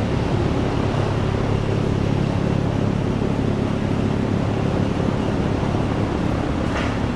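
A steady mechanical hum with a low, even drone, unchanging throughout.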